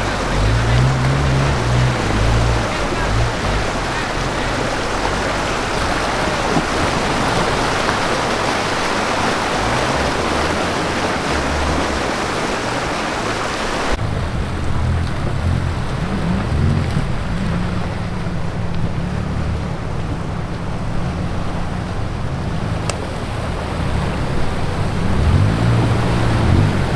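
Off-road 4x4 SUVs wading through a shallow river: engines running under load, with water rushing and splashing against the tyres. Halfway through the sound changes abruptly, with less splash and a clearer engine note.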